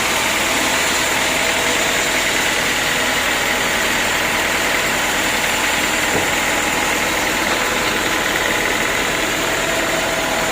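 Sawmill machinery running steadily with an even mechanical hum, with a faint tick about six seconds in.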